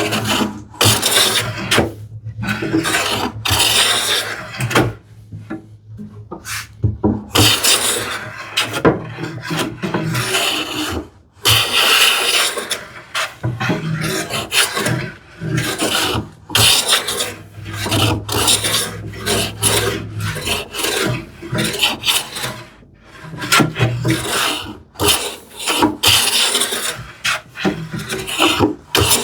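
Scrub plane taking quick, heavy strokes across a wooden panel, one rasping cut after another with short breaks between: rough stock removal down toward a marked line.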